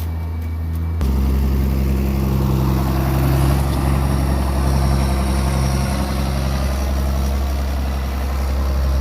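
A heavy vehicle engine running steadily at a constant speed. The sound steps up louder and fuller about a second in.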